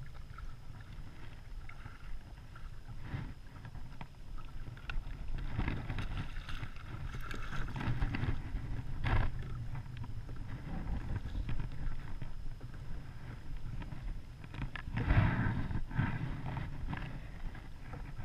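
Water splashing and sloshing beside a plastic kayak as a red drum is scooped into a landing net and lifted aboard. There are louder bursts of splashing and handling about six to nine seconds in and again around fifteen seconds, over a steady low wind rumble on the microphone.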